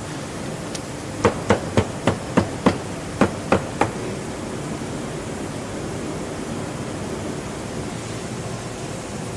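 Nine quick hammer blows, about three a second with a brief pause after the sixth, typical of a cobbler's hammer working a shoe, over a steady background hiss.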